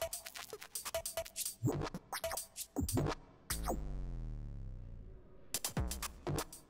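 Electronic percussion music made from electro-percussion samples: rapid sharp clicks and hits with scratch-like sounds. About halfway through, the clicks stop and a low falling tone sounds for about two seconds, then the quick clicking returns.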